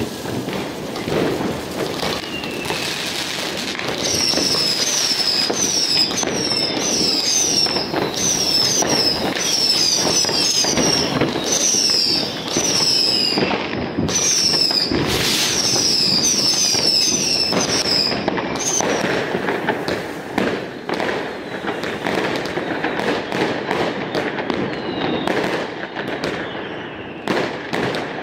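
New Year's Eve fireworks going off: a continuous run of bangs and crackling. For much of the middle there is a rapid series of short falling whistles, two or three a second, from whistling fireworks.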